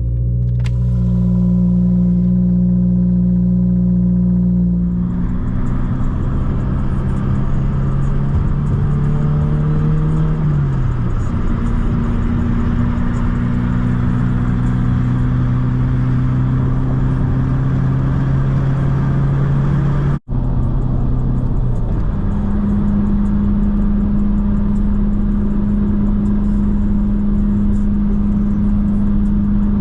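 Subaru WRX's turbocharged 2.4-litre flat-four (FA24) running under way, a steady drone with road noise that steps in pitch a few times as the speed changes. It cuts out for an instant about two-thirds of the way through.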